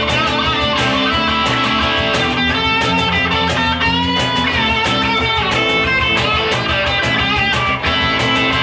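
A band playing live in an instrumental passage with no singing: electric guitar to the fore over a steady beat.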